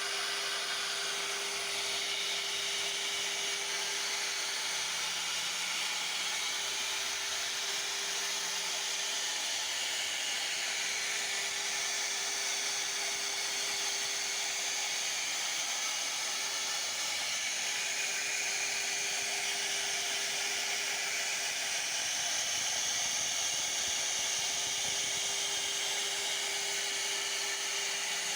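A CNC router's spindle running steadily and cutting wood: a continuous high whine over a hiss of cutting noise.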